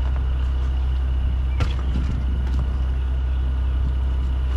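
Heavy truck engine idling with a steady low rumble, and a sharp click about one and a half seconds in.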